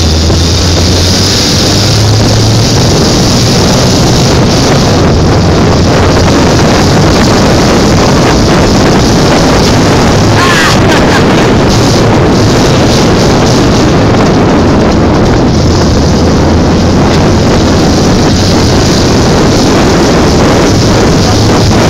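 Modified Piaggio Ape 125 three-wheeler's small engine running steadily under way on a dirt track, a constant low drone mixed with road and wind noise on the microphone.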